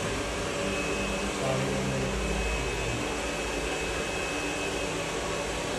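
Hair dryer blowing steadily, with a faint thin whistle through the middle of the sound.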